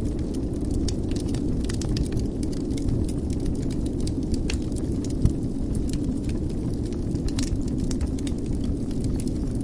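Wood fire burning in a fireplace: a steady low rumble of flames with a continual scatter of small crackles, and one louder pop a little past halfway.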